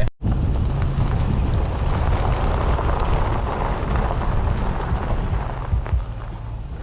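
Loud, steady rumble and hiss with no distinct events, starting abruptly after a cut and easing slightly near the end.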